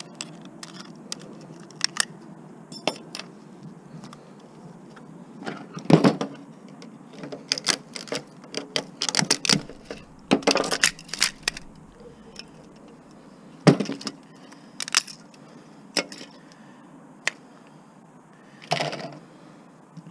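Hand-disassembly of a projection-TV CRT assembly: scattered sharp clicks, knocks and clinks of metal and plastic parts and hand tools being handled and set down on a work table. The loudest knock comes about six seconds in, with a busy cluster of clatter a few seconds later, over a steady low hum.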